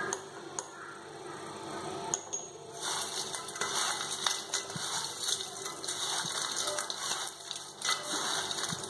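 Crisp fried jackfruit-fibre strands being tossed and mixed by hand in a stainless steel bowl: a dry rustling crackle that starts about three seconds in, after a few light clicks.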